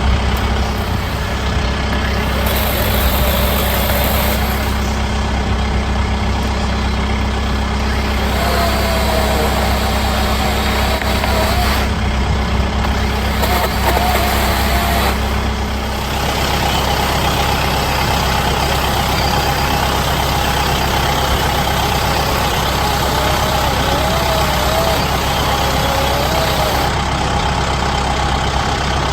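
Kubota M7060D tractor's four-cylinder diesel engine running steadily, with a faint wavering whine coming and going over it.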